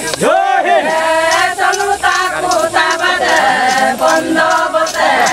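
A group of voices singing a chant without instruments. A single voice swoops up and down at the start, then many voices join and hold notes together.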